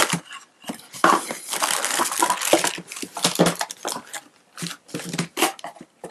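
Plastic bags and cardboard packaging crinkling and rustling as items are lifted out of a box by hand: a dense stretch of rustling about a second in, then shorter separate crinkles.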